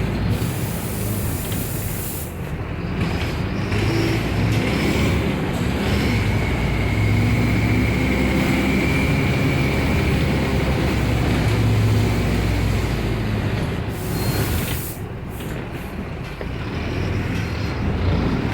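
Diesel bus engine running under way, its pitch rising and falling as the bus accelerates and slows, with a short hiss of the air brakes about fourteen seconds in.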